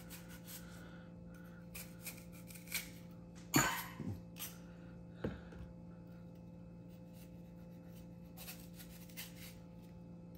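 Knife cutting the core out of apple quarters on a cutting board: faint scraping with a few light knocks, the sharpest about three and a half seconds in, over a steady low hum.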